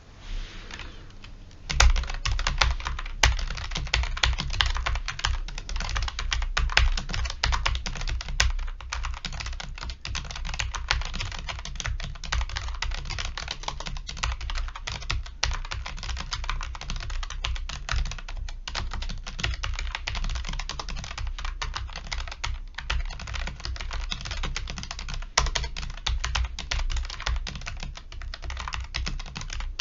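Continuous fast typing on a Logitech G915 TKL keyboard with low-profile GL Linear switches: a dense, unbroken run of quick key clacks, picking up to full pace about two seconds in.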